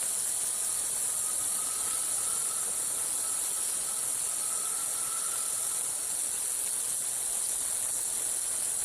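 Rainforest insect chorus: a steady, high-pitched, shrill drone at an even level. A faint thin steady tone sits under it for the first six seconds or so.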